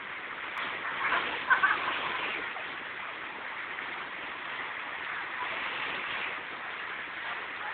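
Mountain river rapids rushing over rocks: a steady, even rush of water. A few short high calls stand out about one to two seconds in.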